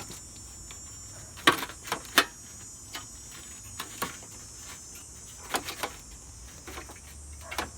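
Scattered clicks and knocks of metal and plastic air-conditioner parts being handled during teardown, the loudest about one and a half and two seconds in.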